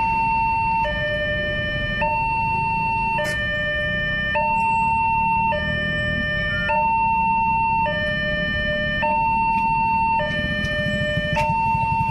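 Railway level-crossing warning alarm from the pole-mounted loudspeaker, alternating between a lower and a higher electronic tone, each held a little over a second, warning that a train is coming and the barriers are closing. Road vehicles idle with a low rumble underneath.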